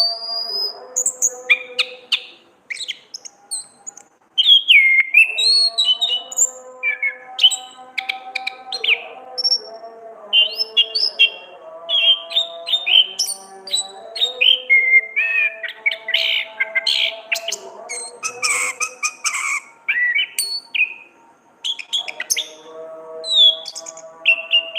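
Orange-headed thrush singing a rapid, varied song of short whistles, chirps and chattering trills, busiest about two-thirds of the way in. Steady background music plays underneath.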